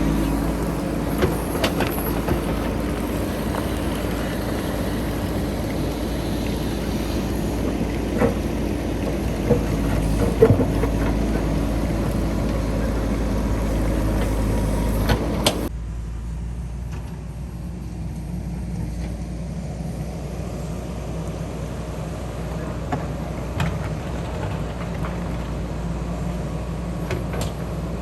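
JCB 3DX backhoe loader's diesel engine running steadily, with scattered knocks and clanks over it. About 16 s in, the sound drops abruptly to a quieter, lower engine drone.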